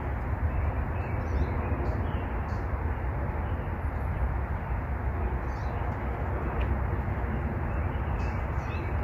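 Steady low rumbling outdoor background noise, with a few short, faint high bird chirps scattered through it.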